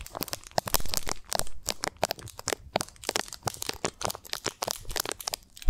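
Crinkling and crackling of plastic candy packaging handled close to the microphone, a dense run of small sharp cracks.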